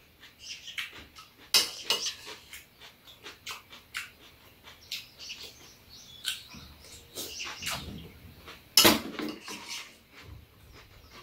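Metal spoons clinking and scraping against a stainless steel bowl and plastic bowls, mixed with the mouth sounds of people eating. The clicks come irregularly, with two sharper, louder clinks about a second and a half in and near the end.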